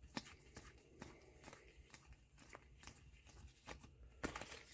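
Faint handling of trading cards: scattered soft clicks and rustles, with a slightly louder rustle near the end.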